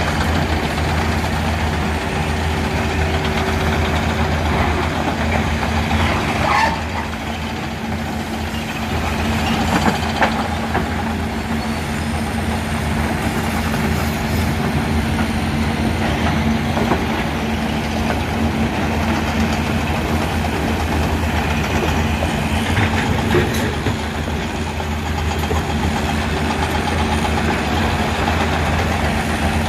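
Mobile impact stone crusher and a diesel excavator running together with a steady, heavy drone. A few loud knocks of rock land in the crusher's hopper, about six seconds in, around ten seconds and again near twenty-three seconds.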